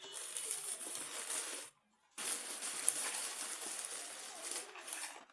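Plastic fish-shipping bags rustling and crinkling as they are handled, a dense crackling that cuts out completely for about half a second near the two-second mark.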